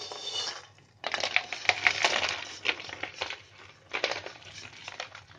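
Dry, sugar-coated shakarpara pieces tumbling and sliding out of a kadhai onto a plate, a dense rattling clatter of many small hard pieces. It comes in spells: briefly at the start, loudest from about a second in, and again about four seconds in.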